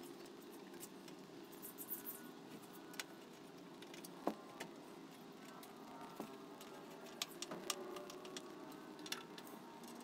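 Faint scattered clicks and light taps from hands handling the edger's side cover and small parts, with one sharper click about four seconds in and a small cluster a few seconds later, over a low steady room hum.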